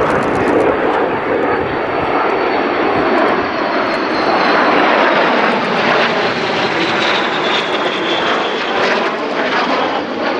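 Fixed-wing aircraft engine noise from an aircraft flying past at an air show, loud and sustained, with a faint high whine that slowly falls in pitch from about halfway through.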